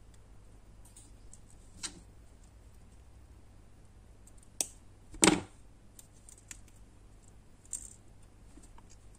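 Small clicks and taps of pliers twisting thin wire around a painted wooden craft stick, a few seconds apart, with one louder knock a little past halfway.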